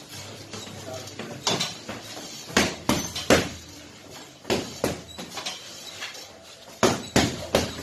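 Boxing gloves landing during sparring: irregular sharp slaps and thuds, several coming in quick runs of two or three, the loudest about three seconds in.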